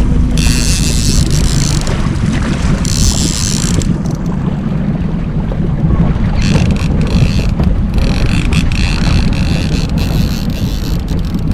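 A fishing boat's motor running steadily under wind buffeting the microphone. Four times, for one to three seconds each, a high-pitched whirring cuts in and stops.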